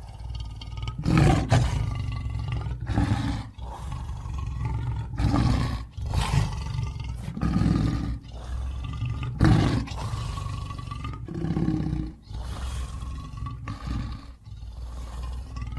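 Lion roaring: a string of deep, loud roars and shorter grunting calls, one after another with brief breaks between them.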